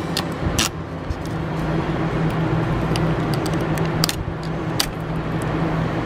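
A steady low hum throughout, with a few sharp clicks and crackles as a utility knife cuts open the plastic blister pack around new brake pads.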